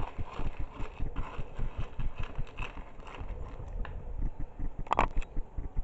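Metal spoon stirring a sticky mix of oat flakes, chocolate spread and honey in a plastic tub: irregular scraping and clicking against the sides, with a sharper knock about five seconds in.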